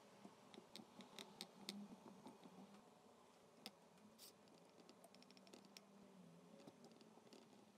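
Faint, scattered clicks and light taps of vegetable pieces being placed into a glass jar, several in the first two seconds and a few more later, over a faint low hum.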